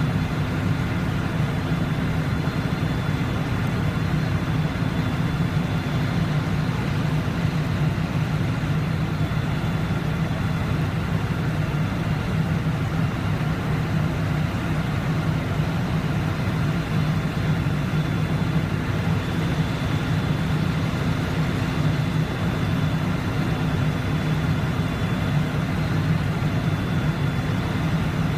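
A heavy engine idling steadily: a low, constant drone with a few faint steady tones above it.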